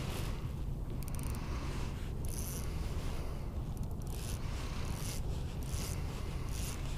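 Short scraping, zipper-like swishes of a winter jacket sleeve rubbing as the arm moves, roughly once a second, over a steady low wind rumble on the microphone.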